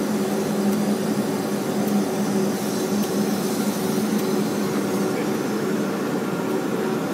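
2006 Komori Lithrone LS 529+C sheetfed offset printing press running at production speed: a steady mechanical din over a constant low hum.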